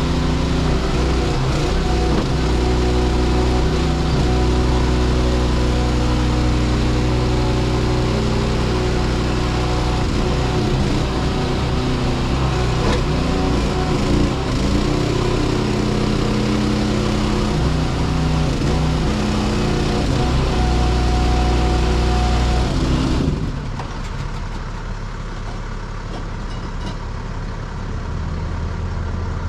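An engine runs loudly and steadily, then drops suddenly to a quieter idle about 23 seconds in.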